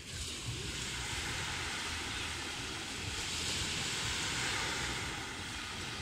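Small sea waves washing onto the shore: a steady hiss that swells at the start and eases off near the end, over a low rumble of wind on the microphone.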